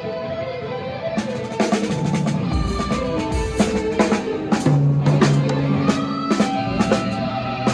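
Rock band playing live at a sound check: held chords at first, then about a second in the drum kit comes in with cymbals, bass drum and snare, and a low bass line joins underneath.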